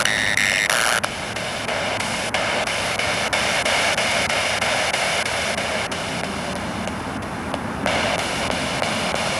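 Spirit box sweeping through radio frequencies: continuous loud static hiss broken by frequent short clicks as it jumps from channel to channel, with a few brief bursts of sound in the first second.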